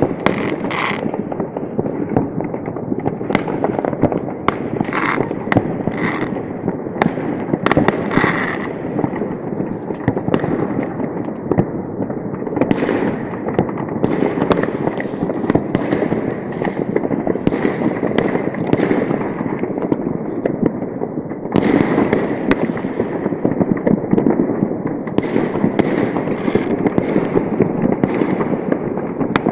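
Many New Year fireworks going off at once: a continuous, dense crackle of bangs and pops with no break.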